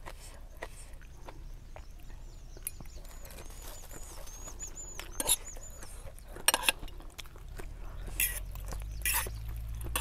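A person eating noodle soup with fork and spoon: soft chewing and mouth clicks, with several short louder eating noises in the second half. A bird gives a rapid series of high chirps, about four a second, from about two seconds in to the middle.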